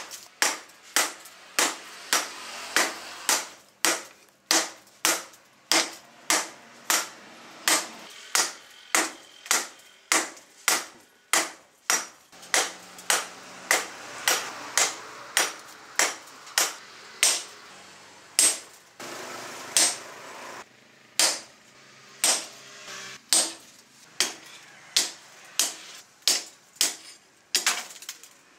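Hand hammer striking red-hot leaf-spring steel on a round steel post anvil: a steady run of sharp, ringing metal blows, about two a second, with a couple of short pauses. This is hand forging of the hot blade.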